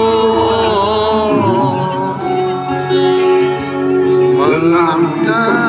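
Live concert music heard from within the crowd: a band playing a slow love song with long held chords, and a voice singing a long wavering note about four and a half seconds in.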